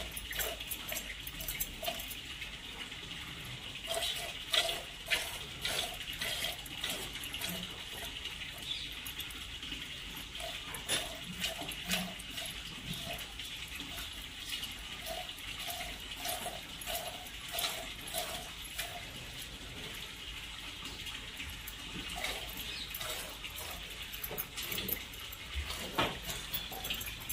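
Hand-milking: streams of milk squirting into a partly filled plastic pail in rhythmic spurts, about two a second, in runs with short pauses.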